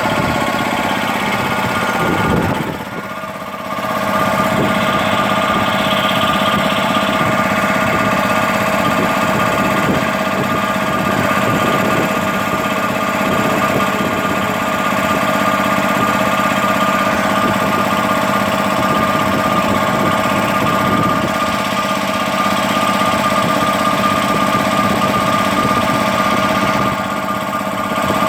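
1990 Bauer high-pressure air compressor running steadily with a constant pitch, filling an 8-litre tank. Its level dips briefly about three seconds in.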